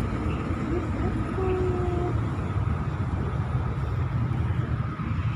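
Steady low outdoor rumble, like passing traffic, with a faint, short, even-pitched call about a second and a half in.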